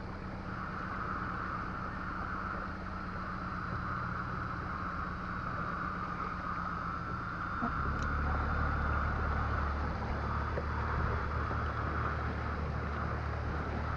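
Outboard motor of an inflatable boat running steadily, with a constant low hum; the low note shifts and grows fuller about halfway through.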